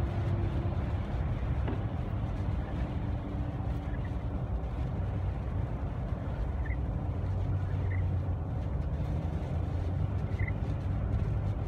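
Steady road drone of a car driving on a snowy highway, heard from inside the cabin: engine and tyre noise, low and even. A few faint, short high chirps sound now and then.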